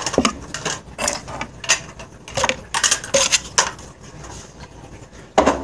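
Hard plastic hamster-habitat tubes, bubble caps and connectors clattering and knocking together as they are handled and put away, a quick run of knocks that thins out after about three and a half seconds, with one more knock near the end.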